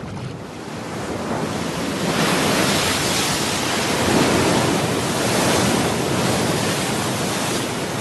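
Ocean waves breaking and washing in, a rushing surf that swells about two seconds in and eases slightly near the end.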